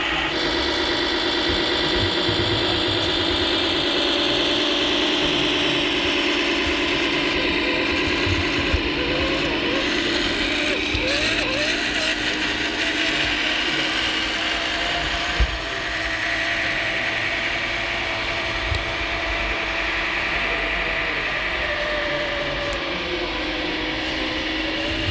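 Radio-controlled model Volvo FH16 tipper truck driving, its electric drive motor and gearbox giving a steady, layered mechanical whine.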